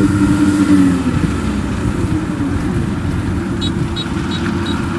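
Kubota PRO75G combine harvester's diesel engine running steadily under working load while it harvests. A faint, high, regular ticking, about three a second, starts about three and a half seconds in.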